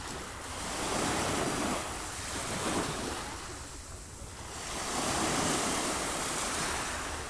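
Sea waves surging and falling back, the surf swelling twice, about a second in and again around five seconds.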